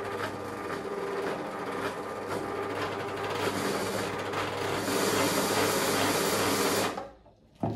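Dorina 710 overlock sewing machine running under its foot control with a dense, rapid mechanical clatter over a steady hum. It grows louder a few seconds in, then stops abruptly, followed by a single knock. The motor has come loose from its mount, which the owner gives as the machine's fault.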